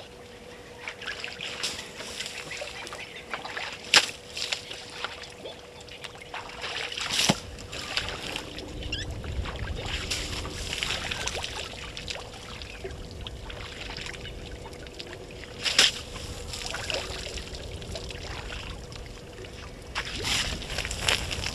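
Outdoor ambience picked up by a fixed wildlife-camera microphone: a faint steady hum, low rumbling noise from about 8 seconds in, and a few sharp clicks, the loudest about 4 and 16 seconds in.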